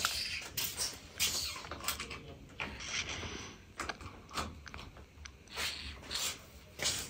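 Scattered light clicks, knocks and rustling at irregular intervals: handling noise as an electric clothes iron is plugged into a wall socket.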